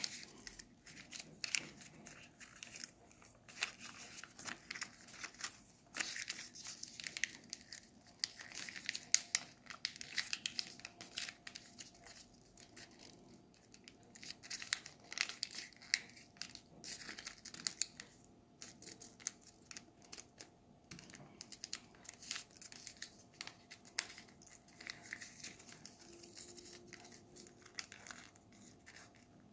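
A sheet of origami paper being folded, creased and pressed by hand, with short, irregular paper crinkles and crackles.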